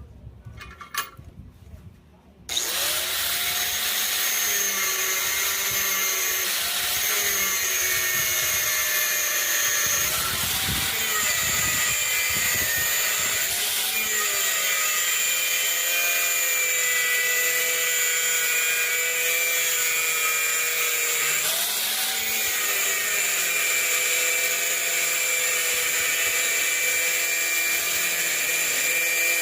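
Electric power tool starting up a couple of seconds in after a few light clicks, then running continuously with a high whine whose pitch dips and recovers several times as it bears on the work.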